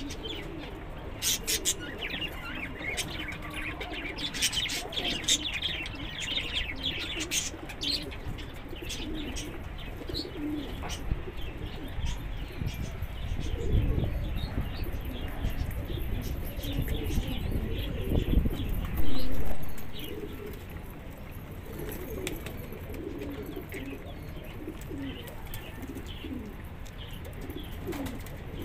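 Pigeons cooing, with small birds chirping busily in the first few seconds and some wing flapping. A stretch of low rumbling midway ends in a short loud burst about two-thirds of the way through.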